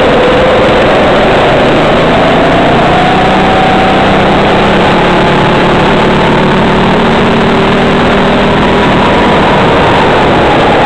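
Racing kart engine heard from onboard, loud and close, its pitch rising steadily through most of the clip as the kart accelerates, then starting to drop near the end.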